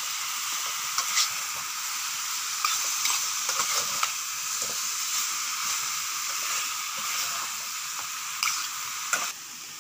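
Chicken pieces sizzling in a metal pan as they are stirred with a metal spoon, which clicks and scrapes against the pan now and then. The steady hiss quietens just before the end.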